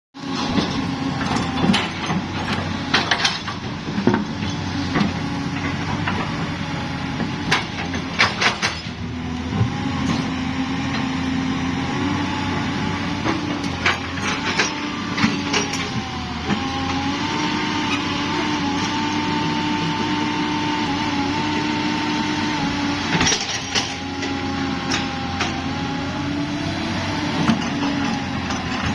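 Hyundai 220-9 excavator's diesel engine running with a steady whine that shifts up and down in pitch a few times, with scattered sharp clicks and knocks over it.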